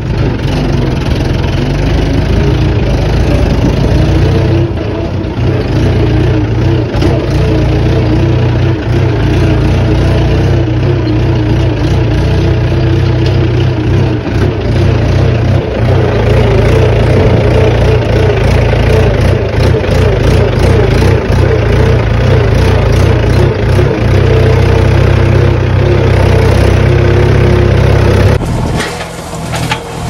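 Farm tractor's diesel engine running steadily under load, heard from on board while it tows a loaded trolley. Near the end it cuts to a backhoe loader tipping a bucket of soil into the trolley, with scattered knocks.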